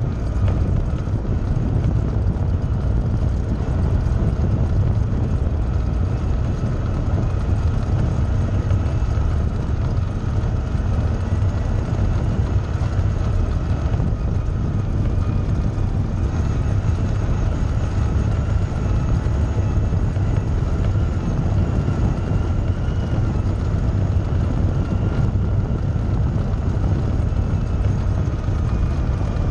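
Off-road vehicle's engine running steadily while driving along a dirt and gravel trail, a constant low rumble with tyre and trail noise and a faint steady high whine on top.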